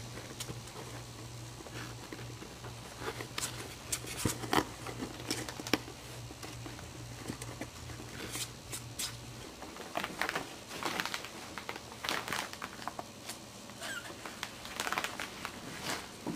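Maltese puppies scrambling about in a cardboard box lined with paper and cloth: claws scratching on the cardboard and paper crinkling and rustling in scattered, irregular scrapes. A low steady hum underneath stops about nine and a half seconds in.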